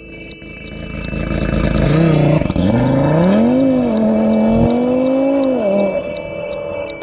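Audi TT RS's turbocharged inline five-cylinder engine revving: the pitch climbs about two seconds in, dips briefly, rises again and holds, then falls away near the end.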